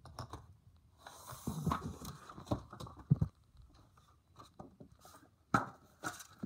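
Irregular rustling, scraping and knocking handling noise, busiest in the first half, with a sharp knock a little after the middle.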